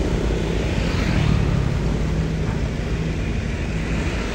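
Steady low rumble of engines and passing vehicles, with engine tones that waver slightly and no sudden knocks.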